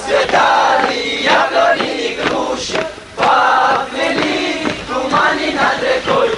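A column of male soldiers singing a marching song in unison as they march, loud group voices in held phrases.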